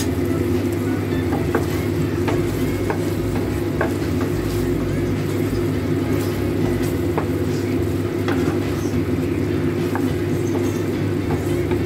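Pork ribs and pineapple simmering in sauce in a pan, bubbling, with a wooden spoon stirring and knocking against the pan now and then as short clicks. Under it runs a loud, steady low hum.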